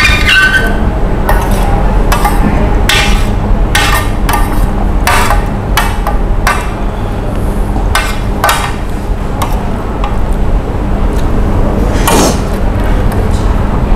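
Cutlery clinking and scraping against a plate in short, sharp strokes, roughly one or two a second, as someone eats. A steady low hum runs underneath.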